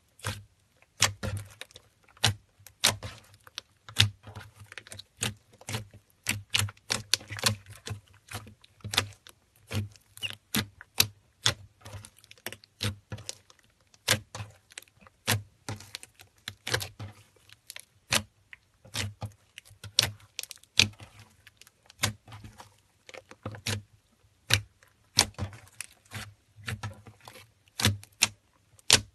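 Hands squeezing and kneading fluffy slime, giving a fast, irregular run of sharp clicks and pops as pockets of air are pressed out of it.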